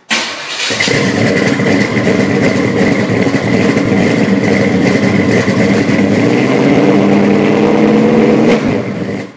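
Loud car engine running with some revving, used as the sound under a channel intro. It starts abruptly and cuts off near the end.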